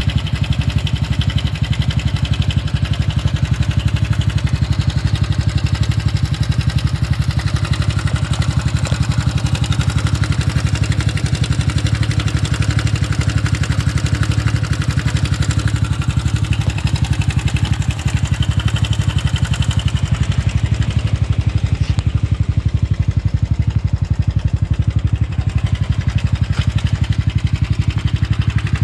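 Honda Super Cub 110 (JA44) single-cylinder four-stroke engine running steadily with an abnormal noise that came on suddenly; the owner does not know what part has failed.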